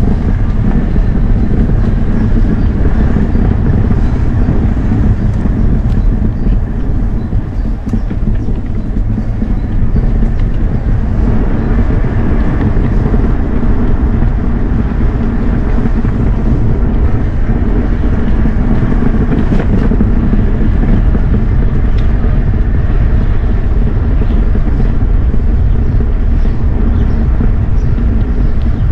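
Steady wind rush and low rumble on the microphone of a camera riding along on a Lacros Trotter, with tyre noise over brick paving.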